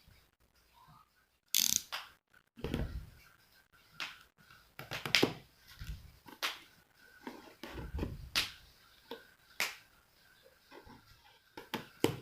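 Irregular clicks, taps and knocks of objects being handled, with a couple of duller thumps about a third of the way in and again about two-thirds of the way in.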